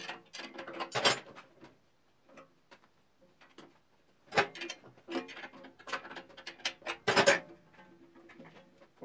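Ratchet wrench clicking in quick runs on the bolt that holds a 14-inch cast iron bandsaw's upper frame on a wooden riser block, as the frame is adjusted back into alignment. One run comes in about the first second, a longer one from about four to seven seconds in.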